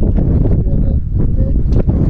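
Strong wind buffeting the microphone, a heavy low rumble, with a few short knocks.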